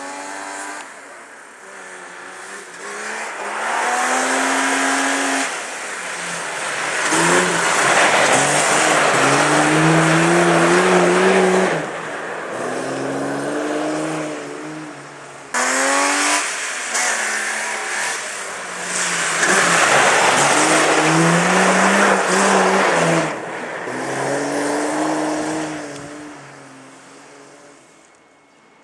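Rally car engine revving hard on a snow circuit, its pitch climbing and dropping again and again as the driver works the throttle and gears while the car slides. The engine fades into the distance near the end.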